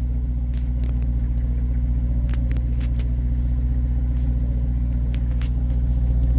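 Jaguar XKR X150's 4.2-litre supercharged V8 idling steadily through its quad exhausts on a cold-start fast idle. A squeaky fan belt is chirping, which the owner puts down to the car having sat for a couple of weeks.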